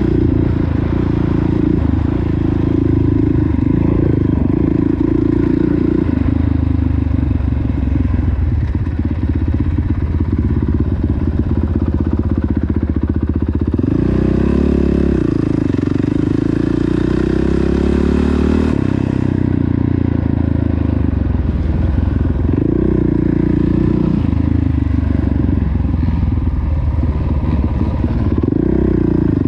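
Motocross dirt bike engine being ridden hard, its pitch rising and falling with the throttle and gear changes. About halfway through it climbs sharply and holds a high rev for several seconds before dropping back.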